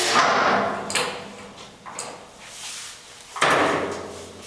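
Mechanical clunks and short rattling noise from the headstock controls of a Promax 26" x 120" engine lathe as they are worked. There is a loud clunk right at the start and another about three and a half seconds in, each fading over about a second, with lighter clicks between them.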